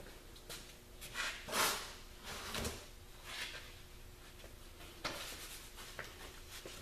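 A few short clunks, scrapes and rattles of hand tools and metal parts being handled while working on a truck's belt tensioner pulley, the loudest about one and a half seconds in.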